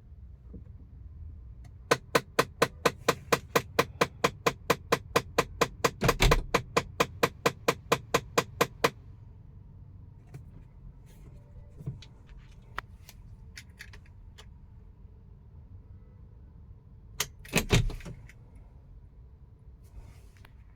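Rapid, evenly spaced clicking from behind the glove box in a Tata Altroz dashboard, about four clicks a second for some seven seconds before it stops: the AC fresh/recirculation air vent flap malfunctioning. A short cluster of louder clicks comes near the end.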